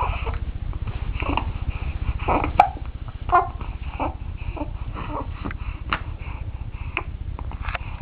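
A one-month-old baby hiccupping: about five short, sudden hics a second or two apart, with small grunting vocal sounds between them, over a steady low rumble.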